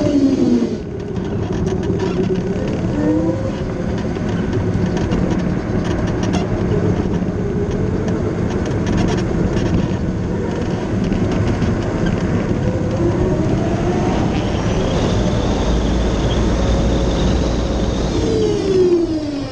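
Formula SAE race car driven hard on a track, its drivetrain note falling as it slows near the start and end and rising again about two-thirds of the way through, over steady road and wind noise.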